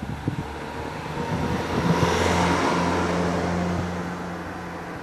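Engine noise swelling to a peak about two seconds in, with a steady low hum underneath, then fading away.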